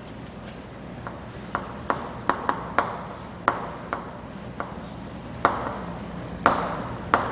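Writing by hand on a board: irregular sharp taps and short scratching strokes, coming faster and stronger in the second half.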